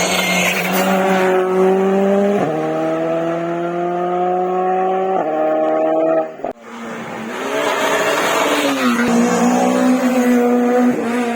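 Rally car engine accelerating hard through the gears: its pitch climbs steadily, drops at upshifts about two and a half and five seconds in, and climbs again. The sound breaks off suddenly about six and a half seconds in, then a rally engine is heard again, its pitch swelling and dipping as it passes before holding steady.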